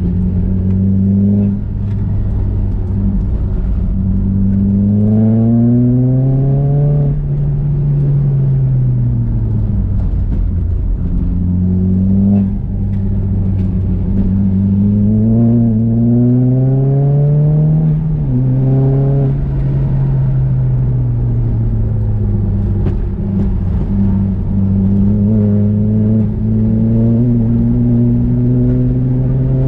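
Nissan Juke engine under hard acceleration on a race track. Its pitch climbs for several seconds and then falls back as the car lifts for corners, three times over.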